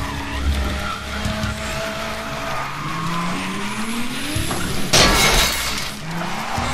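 Car engine sound effect revving, its pitch rising steadily, then a brief burst of tyre skidding about five seconds in, over background music.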